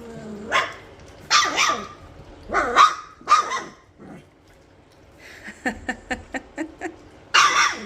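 Young Goldendoodle puppies, about three and a half weeks old, giving short high yips and barks several times, with a run of quick small clicks in the middle.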